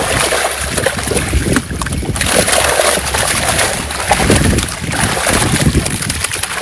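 Water splashing and sloshing as a netful of fish thrashes at the surface against a wooden boat's side, with many quick irregular slaps.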